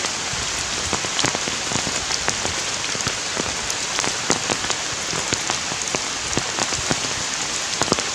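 Heavy rain falling steadily, with a constant hiss and many sharp, irregular drop splats on nearby surfaces.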